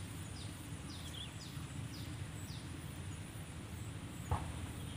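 A bird repeats a short, high, falling chirp about twice a second and stops about halfway through, over a steady low rumble. A single sharp knock comes near the end.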